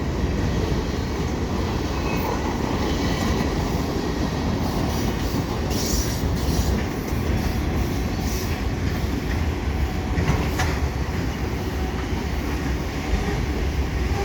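CN freight train cars rolling past: a steady low rumble of steel wheels on rail with clickety-clack over the rail joints, and a few sharp metallic clicks about six and ten seconds in.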